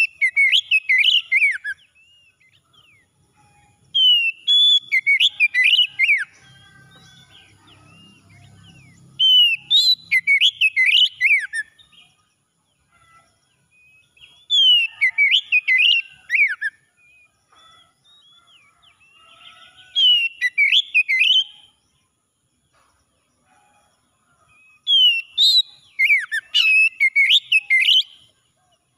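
Male oriental magpie-robin singing: phrases of quick, sliding whistled notes, each about two seconds long, repeated about every five seconds with brief pauses between them.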